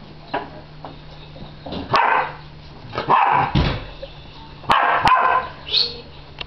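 Belgian Malinois puppies play-barking at each other in several short bursts, ending with a brief high yip.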